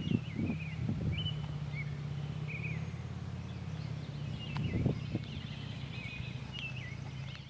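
Outdoor ambience of birds chirping, with many short whistled calls, over a low steady hum. Wind buffets the microphone briefly near the start and again about five seconds in.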